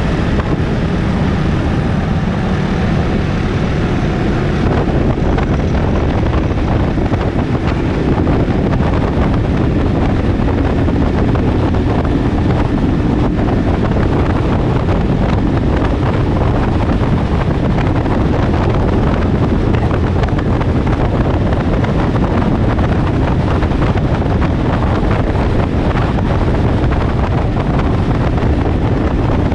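Motorcycle engine running on the move under heavy wind noise on an action camera's microphone: a loud, steady rush, with the engine's note faintly showing through in the first few seconds.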